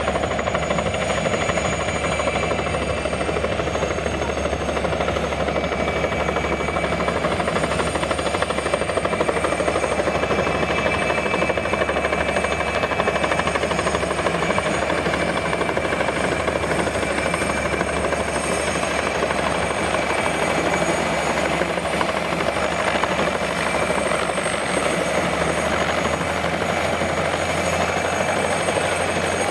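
PZL-Świdnik Mi-2 helicopter in flight, its rotor and twin turboshaft engines running steadily with a constant high whine over the rotor noise.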